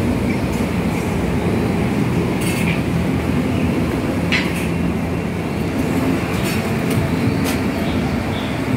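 Steady low rumble of nearby vehicle traffic with an engine hum running through it, and a few light clicks.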